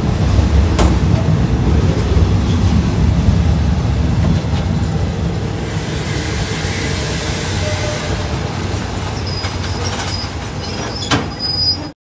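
Passenger coach of a diesel-hauled Thai train running along the track: a steady low rumble of wheels and carriage, heard from the open doorway. A thin high squeal comes in during the last few seconds, and there is a sharp knock about a second before the end.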